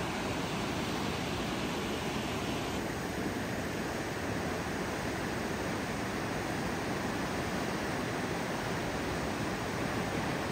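Steady, even rushing noise with no engine, rockfall or other single event standing out.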